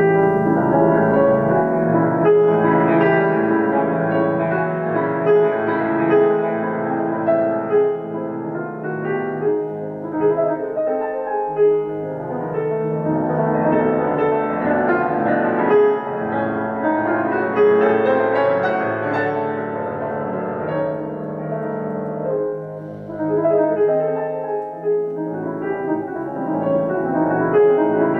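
Bösendorfer grand piano played solo: a dense, loud classical piece with full chords and rapid passages. It swells and eases slightly around the middle, then builds again.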